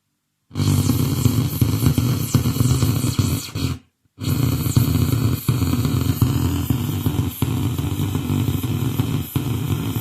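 Faulty audio on a Xiaomi Redmi Note 3 Pro: after half a second of dead silence, a loud, harsh, distorted buzzing noise. It cuts out completely for a moment about four seconds in, then comes back.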